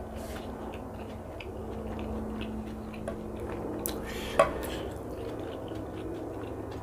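A drinking glass of water knocks against the table as it is picked up: one sharp clink with a short ring about four and a half seconds in, with a couple of fainter taps before it, over a steady low background hum.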